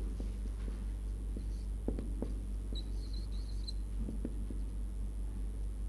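Marker writing on a whiteboard: a few light taps, with short high squeaks about three seconds in, over a steady low electrical hum.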